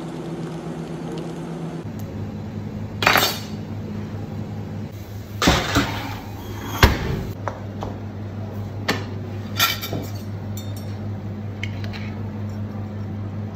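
Kitchen clatter of a metal baking tray and utensils: a handful of sharp metallic clanks and knocks, spaced a second or two apart, as the tray is handled and slid into an oven. A steady low hum runs underneath.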